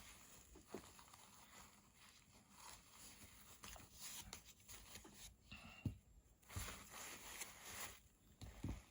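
Faint handling sounds: soft rustling of tissue and a few light knocks as knife parts are wiped clean with alcohol.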